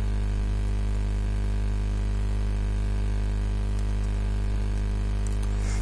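Steady electrical mains hum and buzz with a faint hiss, unchanging throughout.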